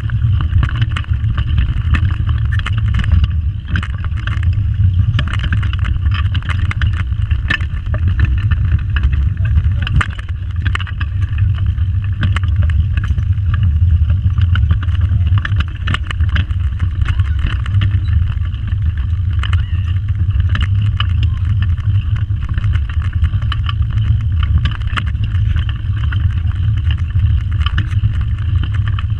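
Pedal go-kart rolling over the track, picked up through a camera mounted on its frame: a steady, loud low rumble with many small rattles and clicks.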